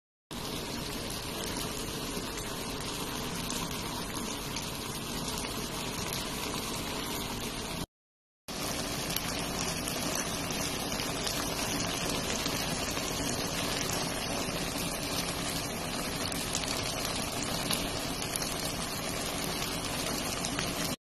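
A pan of macaroni cooking in its sauce on a lit gas burner, giving a steady hiss of simmering and burner noise. A brief silence breaks it about eight seconds in.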